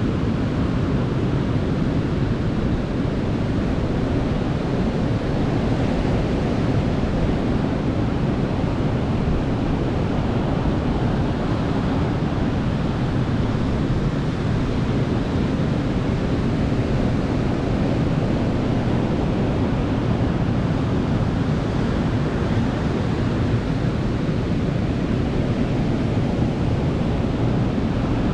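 Ocean surf washing onto a beach: a steady, deep rushing noise with no distinct single breakers standing out.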